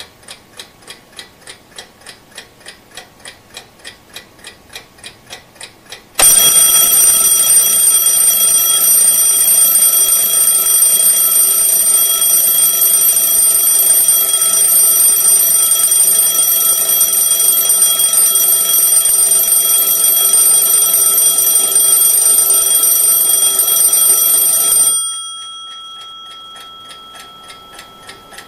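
A clock ticking about three times a second. About six seconds in, an alarm clock starts ringing loudly and steadily; it cuts off near the end, and the faint ticking returns.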